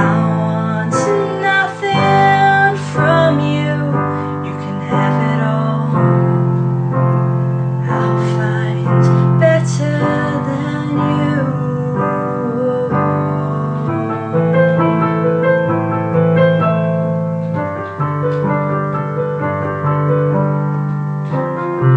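Background music: a piano-led pop song in a passage without words, its chords changing about every second.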